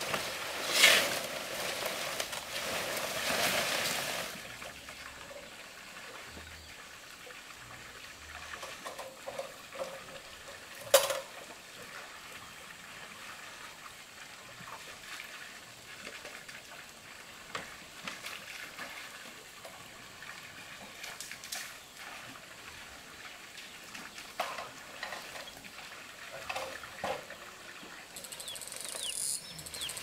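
Water splashing and trickling, loudest in the first few seconds, then scattered small splashes and knocks with one sharp knock about eleven seconds in.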